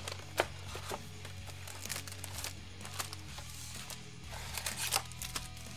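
Foil-wrapped trading card packs crinkling and clicking against each other and the cardboard of a Panini Prizm hobby box as they are lifted out and stacked, in a run of short sharp rustles. Quiet background music with steady low notes plays underneath.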